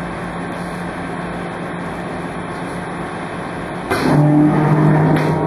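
Crest clamshell die cutter running with a steady machine hum. About four seconds in it engages with a click and the platen closes for the cutting stroke, and a louder, deeper drone sets in as the steel-rule die cuts a 1.0 mm black poly sheet into urethane cutting pads.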